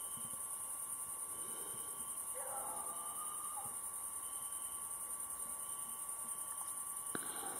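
Crickets chirring in a steady, high, unbroken chorus. A faint call is heard about two and a half seconds in, and a single click comes near the end.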